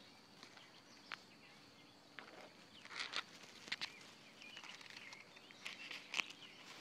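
Faint rustling and scattered light clicks and taps, about six of them, as a phone camera is handled and propped in long grass with blades brushing the lens and microphone.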